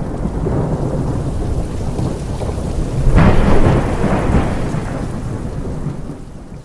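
Thunderstorm: steady rain under a deep rumble of thunder, with a sharper thunderclap about three seconds in, then fading out near the end.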